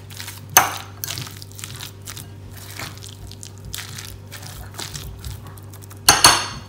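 Metal spoon stirring shredded chicken, cabbage and mayonnaise in a glass mixing bowl: soft squelching and scraping, with the spoon knocking the glass about half a second in and a louder cluster of clinks near the end.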